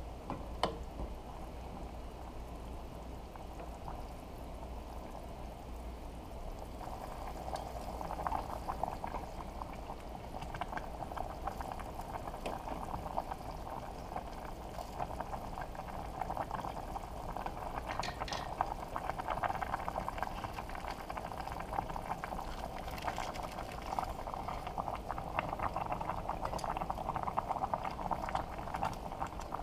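Noodle soup broth boiling in a stainless steel pot, a steady crackly bubbling that grows louder after about seven seconds. A single sharp knock comes about half a second in.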